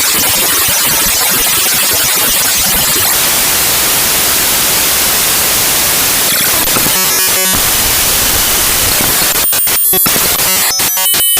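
Raw binary data of the Adobe AIR.dll file played back as audio: loud, harsh static-like noise. It breaks into buzzy, pitched patterns briefly about 7 seconds in and again from about 9.5 seconds in.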